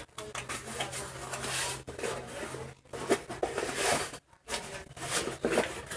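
Irregular rustling, rubbing and clicking of slime-kit items and packaging being handled.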